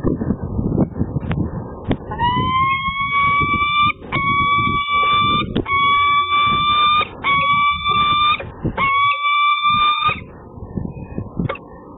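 Peregrine falcon calling: five drawn-out, slightly rising calls of about a second and a half each, starting about two seconds in and ending near the end, over a low rumble of wind on the microphone.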